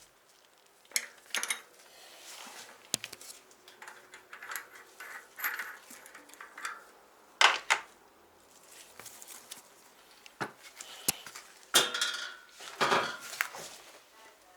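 Bicycle rear hub parts and tools clinking, tapping and scraping against each other as they are handled, in irregular bursts with a few sharper knocks.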